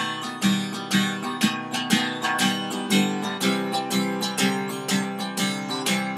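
Acoustic guitar strummed in a steady rhythm, about two strokes a second, with no singing: an instrumental passage between verses of a song.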